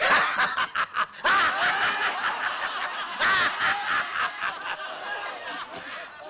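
A group of men laughing loudly together, breaking out all at once with many voices overlapping.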